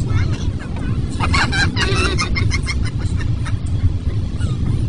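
A car driving in the rain, with a steady low rumble of engine and road noise. A wavering, pitched voice-like sound comes in about a second in and lasts about a second and a half.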